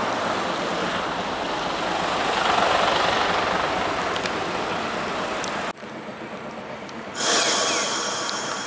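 A Kumamoto City Transport 9200-series tram running toward the listener on street track, a steady rolling rumble of wheels on rail that swells as it draws near. Almost six seconds in the sound cuts off suddenly, and about a second later a loud, bright hiss starts.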